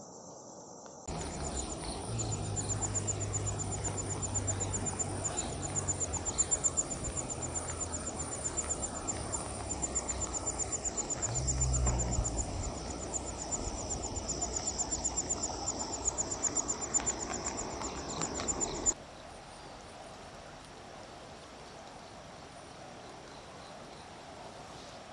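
Steady rushing of a swollen, flooded river, with insects trilling fast and high over it and a low rumble that swells about midway. After about 19 seconds the sound cuts off suddenly, leaving a fainter, even rush of water.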